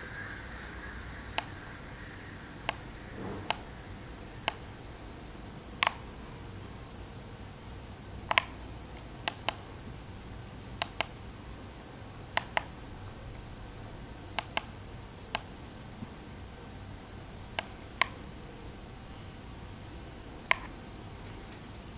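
Buttons on an e-bike LCD-001 display being pressed to step through its settings: about twenty sharp clicks at irregular intervals, some in quick pairs, over a faint steady room hum.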